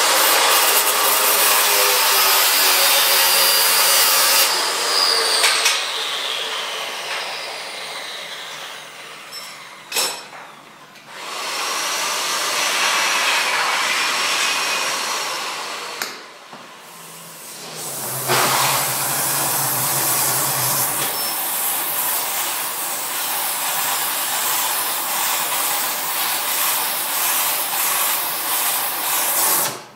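A power tool running in three long spells of loud, hissing noise. After the first spell the motor winds down with a falling whine; the last spell cuts off suddenly near the end.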